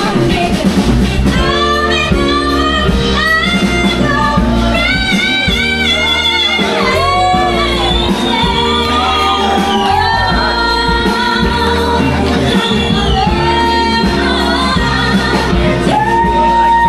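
A song: a singing voice over a steady bass line and chords.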